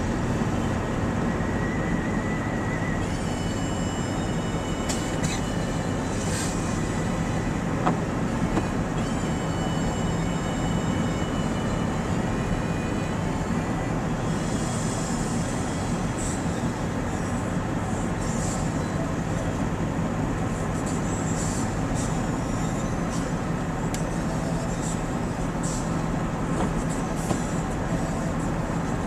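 Steady rumble of a running vehicle, with a low engine hum underneath.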